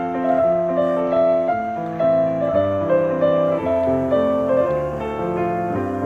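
Background piano music: a gentle melody of held notes over low chords.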